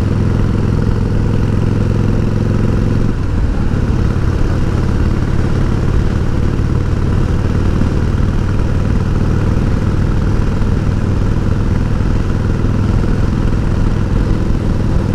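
Harley-Davidson Heritage Softail's 1340 cc Evolution V-twin running steadily while riding, with wind rush over it; the engine note shifts briefly about three seconds in.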